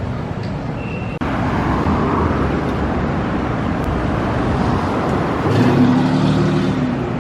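Road traffic on a city street: cars passing in a steady rumble that gets louder about a second in. From about five and a half seconds in, a nearby vehicle's engine adds a steady low hum.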